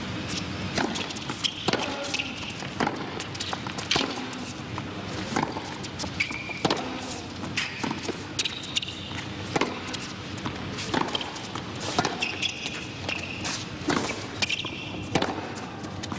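Tennis stadium crowd between points: a steady murmur with scattered shouts and irregular handclaps and knocks.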